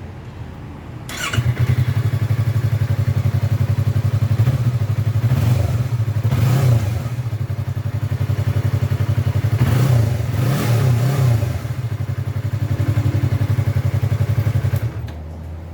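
Yamaha R3's 321 cc parallel-twin engine running through a freshly fitted Austin Racing slip-on exhaust: it gets much louder about a second in, then is revved up and back down twice, before settling back near the end.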